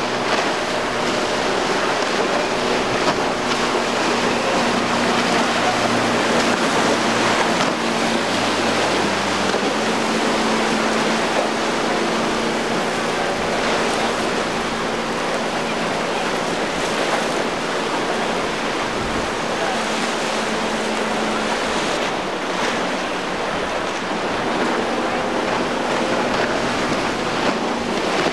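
Boat engines running at speed over steady surf, wave wash and wind noise, the engine hum low and even, shifting in pitch a few times.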